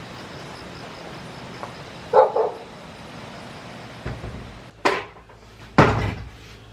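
A dog barks twice in quick succession about two seconds in, then two sharp knocks near the end.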